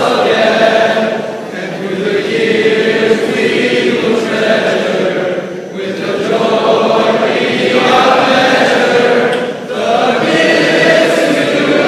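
A large assembly of voices singing a song together in long held phrases, with a short break for breath about every four seconds.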